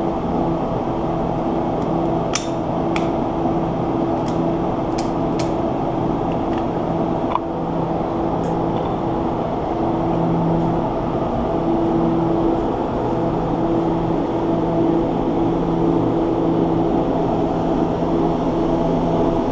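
Steady mechanical hum with an even, low drone that does not change. A handful of light clicks come in the first seven seconds or so.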